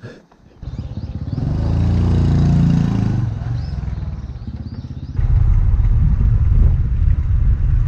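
Honda Super Cub's small single-cylinder four-stroke engine, catching about half a second in after a short click, rising in pitch and easing off, then running louder and steadier from about five seconds on.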